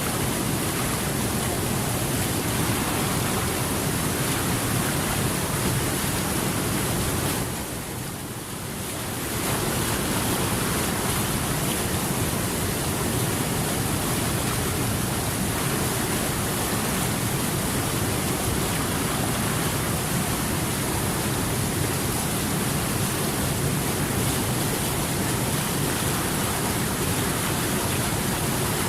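Steady rushing water, an even continuous hiss, that dips briefly in level about eight seconds in and then comes back as before.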